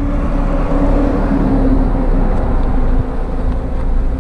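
A motor vehicle's engine over a low wind rumble on the microphone; the engine note sinks slowly in pitch.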